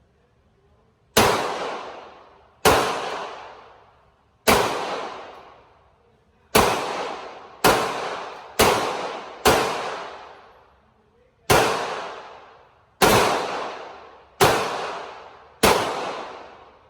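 Glock 43 9mm pistol firing eleven shots at an uneven pace, some in quick pairs and others a second or two apart, each shot ringing out in a long echoing decay.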